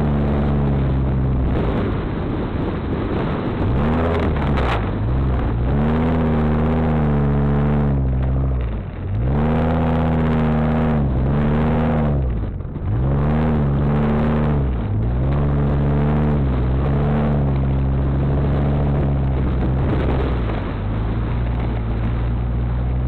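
Ford Econoline van's engine and exhaust, heard close to the tailpipe, revving up and easing off again and again as the van drives through soft sand, over a steady wash of tyre and road noise.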